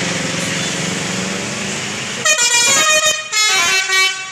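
Bus engine running, then about two seconds in a 'telolet' bus musical air horn plays a quick run of changing notes, ending on a longer held note.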